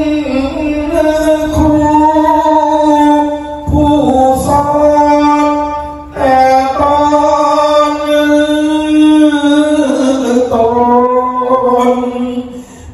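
A single voice singing a slow, melodic chant in long drawn-out notes that waver gently in pitch, phrase after phrase, breaking off briefly twice.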